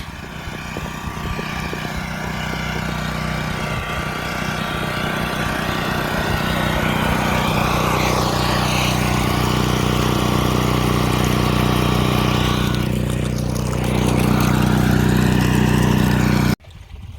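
Generator engine running steadily to power the farm's water supply. About 13 seconds in its note dips and then comes back louder, and near the end it cuts off abruptly.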